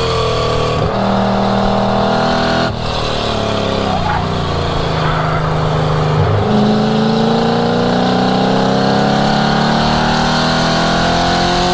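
1967 Mustang V8 under hard driving on track, the engine note changing pitch abruptly at several gear changes and then climbing steadily for several seconds as it accelerates.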